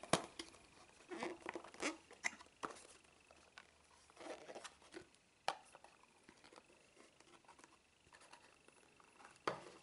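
Cardboard packaging being handled and unfolded: scattered light scrapes, rustles and taps of card against card and the tabletop, with a few sharper knocks.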